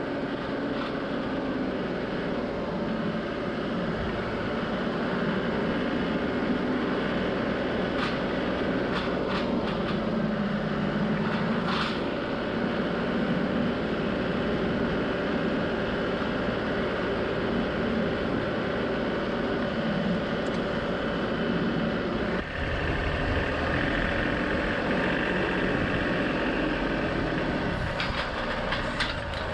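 John Deere 2038R compact tractor's three-cylinder diesel engine running steadily while the tractor drives, with a few short clanks from the front loader and grapple. The engine note shifts lower about three-quarters of the way through.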